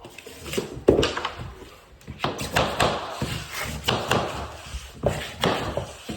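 Repeated wooden knocks and clatter of laminate flooring planks being handled, set down and tapped into place, about a dozen irregular hits.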